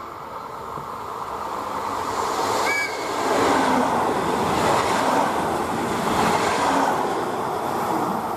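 ETR 252 'Arlecchino' electric train running through a station without stopping: its rushing noise builds as it approaches, is loudest for several seconds as the carriages pass, and eases near the end. A brief high horn note sounds about three seconds in.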